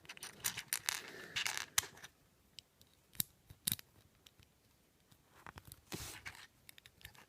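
Plastic Lego bricks clicking and rattling as they are handled and pressed together: a quick run of clicks in the first two seconds, then a few single sharp clicks and a short rustle.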